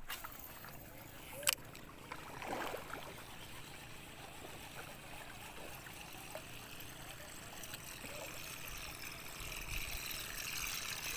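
Water lapping and trickling against the hull of a small boat, a steady low wash, with one sharp click about a second and a half in.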